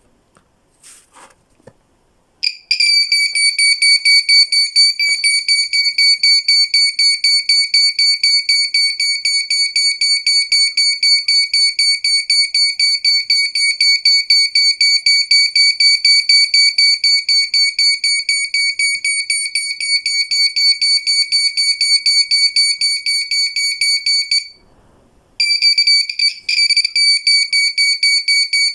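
A 3.7 V active buzzer driven by an NE555 timer beeps in a fast, steady train of shrill, high-pitched pulses. It starts a couple of seconds in after a few faint clicks. About 24 seconds in it stops for roughly a second, then beeps again.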